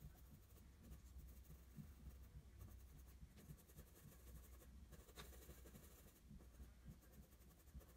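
Graphite pencil scratching faintly on drawing paper in quick, short, repeated strokes as it shades fur.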